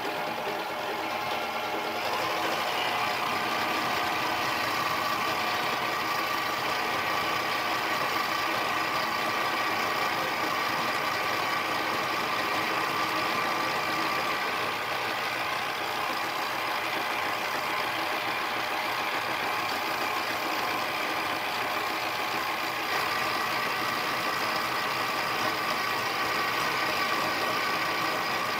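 Mini lathe running steadily, its motor and gear train whining, while the cutting tool faces off a 6061 aluminium pulley blank. The sound grows fuller and brighter about two seconds in as the cut takes hold.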